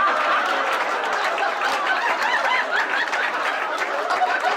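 Live comedy-club audience laughing and applauding together after a punchline, many voices over a patter of clapping.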